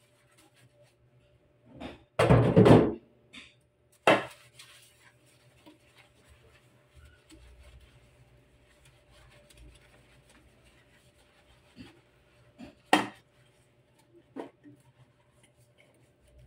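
Clear plastic water-purifier filter housings handled and scrubbed in a stainless-steel sink. There are a few sharp knocks and clatters, the loudest a short clatter about two seconds in and others near four and thirteen seconds, with soft rubbing in between.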